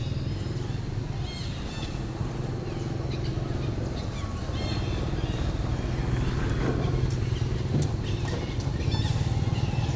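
An engine running steadily with a low, even drone that grows a little louder past the middle. Short high chirps sound now and then above it.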